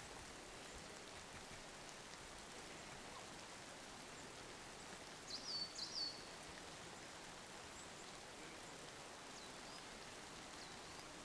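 Faint steady hiss of light rain in a fir forest. A small bird gives a quick run of three or four short high chirps about halfway through, then two single chirps near the end.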